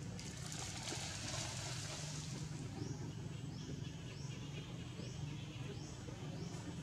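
Outdoor ambience: a short, high, falling call repeated about twice a second over a steady low hum, with a hiss in the first couple of seconds.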